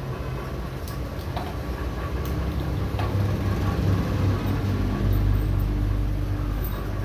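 Steady low rumble like a vehicle engine running, growing louder in the second half, with a few light clicks over it.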